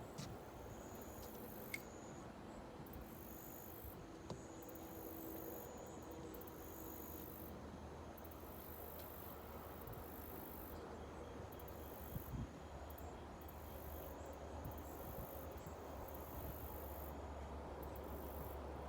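Insects trilling in high, steady tones that start and stop every second or two, with a few faint clicks and a low hum in the second half.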